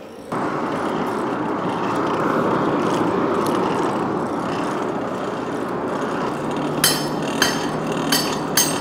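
Wood fire in a blacksmith's forge, fanned by a hand-cranked blower, making a loud, steady rushing roar. From about seven seconds in, a few light metallic taps ring out, roughly two a second, like a hammer on an anvil.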